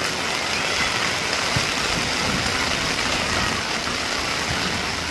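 Heavy rain pouring down: a dense, steady hiss.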